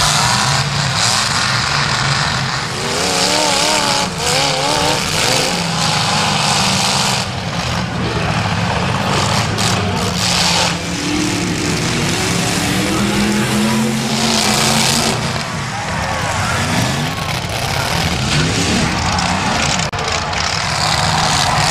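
Demolition derby cars racing on a dirt track, several engines running hard and revving up and down, with occasional bangs of cars hitting one another.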